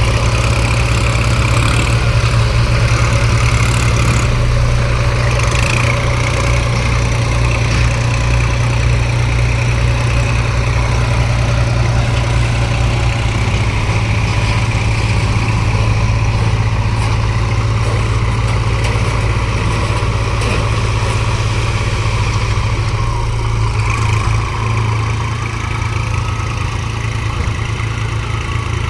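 Heavy diesel machinery running steadily with a deep, even engine hum: the JCB 3DX backhoe loader and tractors at work loading mud.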